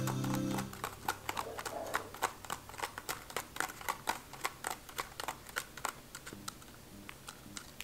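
A kitten's claws scratching and pawing at a spiky plastic mat: a quick, irregular run of small clicks and scrapes, several a second.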